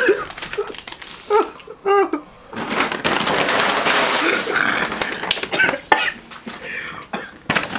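Brown kraft-paper snack bag rustling and crinkling for several seconds as it is lifted and handled, with sharp crackles. A short laugh comes just before it.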